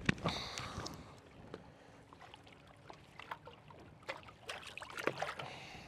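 Scattered light knocks and clicks with a brief splash and trickle of water, the sounds of handling a fish and gear aboard a small boat.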